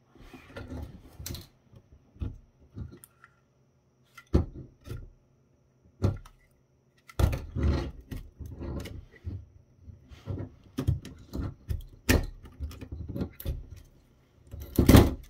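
Small plastic and circuit-board parts of a Kodak DX3900 digital camera being handled and worked apart by hand and with a small screwdriver: irregular clicks, taps and clatter, with one louder knock near the end.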